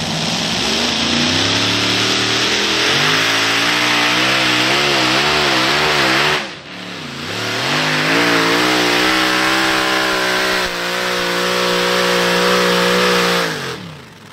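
Modified pulling tractor with several supercharged engines running at full throttle under load as it pulls the sled. The engine note climbs, wavers up and down as the revs surge, dips sharply about halfway through, climbs back to a steady high pitch, and falls away near the end.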